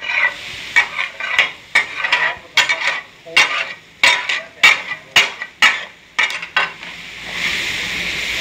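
Metal spatulas striking and scraping a hot flat tawa griddle in taka-tak style as dal and egg are chopped and tossed, a quick irregular clatter of about four strikes a second over frying sizzle. Near the end the strikes stop and a steady sizzle goes on.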